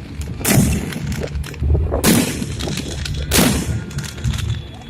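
Fireworks shells bursting overhead: three big bangs about a second and a half apart, each with a rolling echo, and smaller pops in between.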